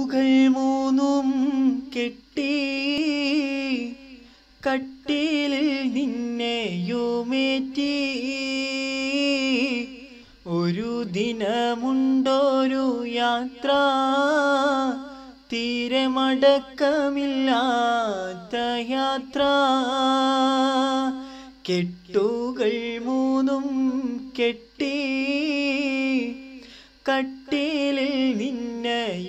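A man singing a Malayalam song solo, without accompaniment. He holds long, ornamented phrases with a wavering melody, with short breaks between phrases.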